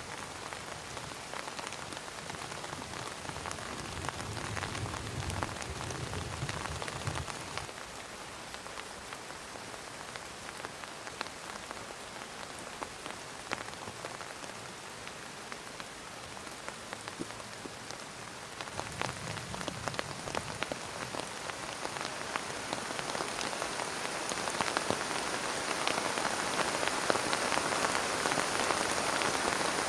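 Heavy rain falling, with many individual drops ticking on a surface, growing louder and heavier over the last third.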